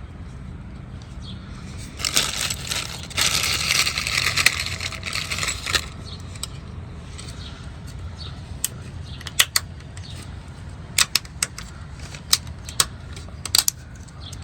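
Hand work on running-board brackets under an SUV: a few seconds of scraping and rustling, then a scatter of sharp metallic clicks and clinks from tools and hardware being handled.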